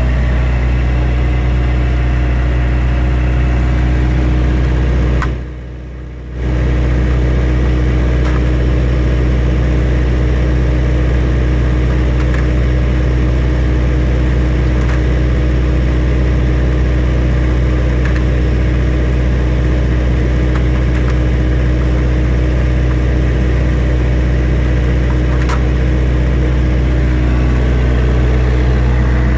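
A large engine idling with a steady, low drone. It drops away for about a second roughly six seconds in, with a few faint clicks scattered through.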